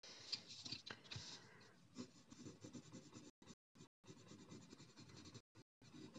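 Coloured pencil scratching on paper as leaves are shaded in: faint, soft strokes, a little louder in the first couple of seconds, with brief gaps.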